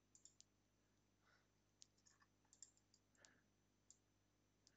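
Near silence with faint, scattered computer mouse clicks, about half a dozen.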